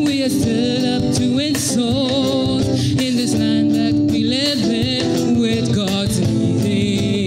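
A church vocal group of men and women singing together into microphones, with instrumental accompaniment. The voices hold long notes with a wavering vibrato.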